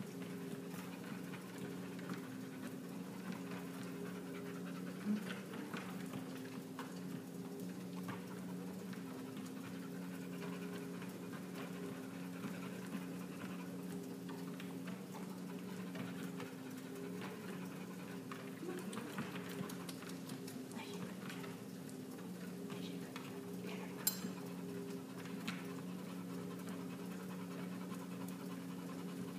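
NordicTrack Summit 4500 treadmill running with a steady motor hum while a pit bull walks on the belt, panting. Two sharp clicks stand out, about five seconds in and near the end.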